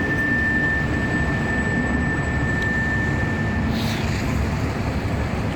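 Train rumbling past, with a steady high-pitched squeal that cuts off about four seconds in.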